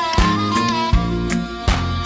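Instrumental break in a country-style song: a steady drum beat and bass under a sliding lead melody, with fiddle or guitar.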